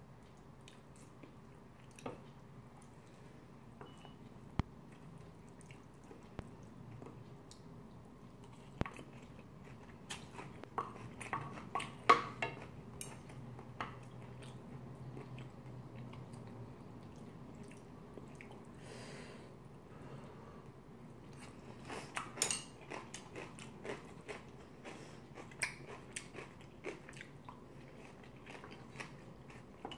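Someone eating curry rice and cabbage kimchi: chewing and biting with small crunches, and scattered sharp clicks of a spoon and chopsticks against the plate. The louder crunches and clicks bunch up about twelve seconds in and again a little past twenty seconds.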